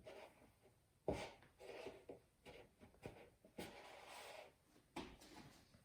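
Faint handling sounds of a cloth tea towel being rustled and pressed into a bowl, with a couple of light knocks, about a second in and again near the end.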